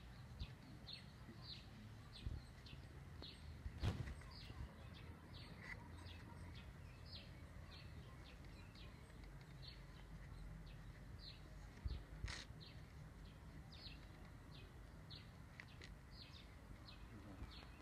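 Faint bird chirping, short high chirps repeating about two a second, over a low steady outdoor rumble. Two brief knocks, about four and twelve seconds in.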